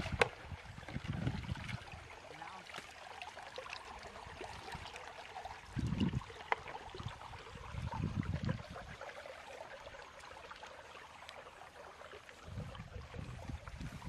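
Water trickling steadily in a small rice-field channel, with gusts of wind buffeting the microphone now and then. One sharp click comes right at the start.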